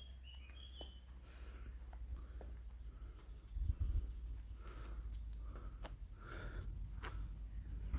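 Insects trilling steadily in a high, slightly pulsing buzz, with a few short bird chirps in the first second and a low rumble underneath.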